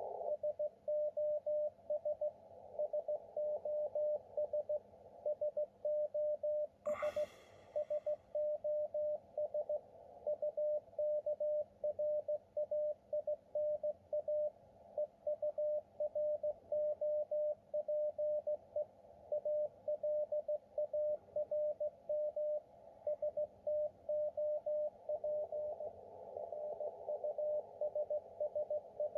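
Morse code signal received on the 40 meter amateur band: a single steady tone keyed on and off in dots and dashes over a hiss of band noise. The transmission is a distress (SOS) request. A short higher-pitched burst cuts in about seven seconds in.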